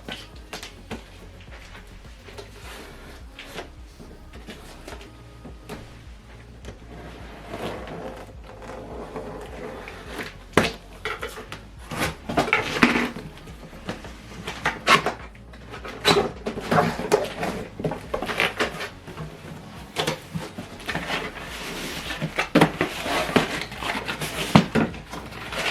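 A soundbar's shipping box and packaging being handled and opened: scattered knocks, scrapes and rustling, sparse at first and much busier from about seven seconds in.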